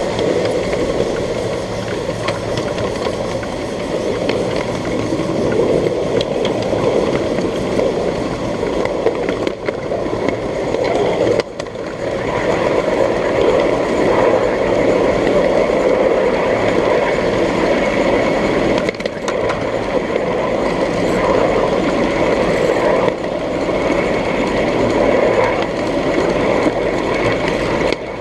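1/8-scale ridable miniature train running on its track: a steady, dense running noise with a faint high steady tone over it.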